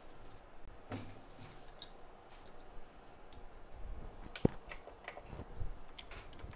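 Scattered light clicks and taps of small hand tools being handled on a repair bench, with one sharper click about four and a half seconds in.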